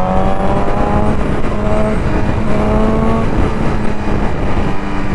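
BMW S1000RR's inline-four engine through an Akrapovic full-system exhaust, pulling under acceleration: its pitch rises, breaks off about a second and a half in, and climbs again. Heavy wind rush on the microphone at road speed runs under it.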